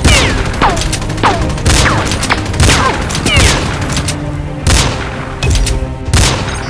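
A string of single gunshot sound effects, about ten, fired at irregular intervals of roughly half a second to a second, each followed by a falling ring. They play over background music.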